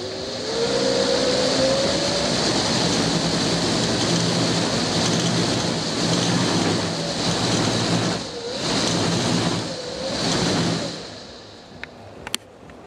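A 250 W electric-scooter hub motor spinning test rotor blades: a motor whine rising as it speeds up, then a steady rush of air from the blades over a low hum. The rush dips twice briefly, then winds down about eleven seconds in, followed by a couple of sharp clicks.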